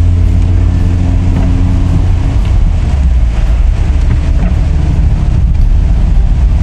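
Steady low drone of a car driving on a wet road in heavy rain, heard from inside the cabin; the low hum shifts in pitch about two seconds in.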